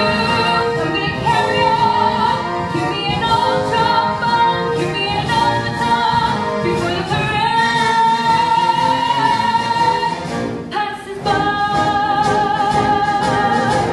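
Show tune sung live on stage: a female lead voice with a chorus over instrumental accompaniment. There are long held notes, and a brief break comes a little after ten seconds before the singing resumes.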